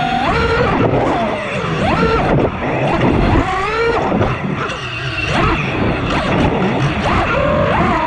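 Electric motors and propellers of a 6S FPV freestyle quadcopter (Armattan Marmotte with T-Motor F60 Pro II motors), heard from the onboard camera. The whine swoops up and down in pitch again and again as the throttle is punched and cut through tricks, over a rough rush of prop wash and wind.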